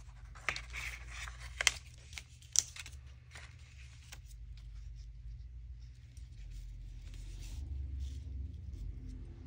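Sheets of vellum and paper being handled and laid on a tabletop, a light rustling, with a few sharp clicks as small objects are set down, the loudest two about a second apart near the start.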